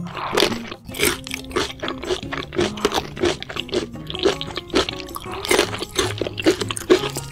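Cartoon crunching sound effects of a hard candy lollipop being bitten and chewed, a quick run of crunches about three a second, over cheerful background music.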